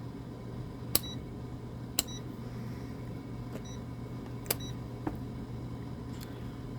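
Rotary selector dial of a Kaiweets HT118E digital multimeter clicking from setting to setting, with a short high beep from the meter at several of the switch positions. There are four or five clicks, spaced roughly a second apart.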